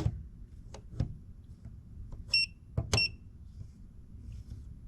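Non-contact voltage tester giving one short high-pitched beep about halfway through, its alarm for sensing live AC voltage as the tip nears the line side of a power outlet, with a few light taps before and after it.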